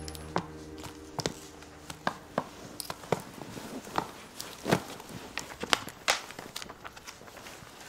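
Footsteps: a dozen or so separate clicks at uneven spacing, roughly every half second to a second. The tail of background music fades out in the first second or so.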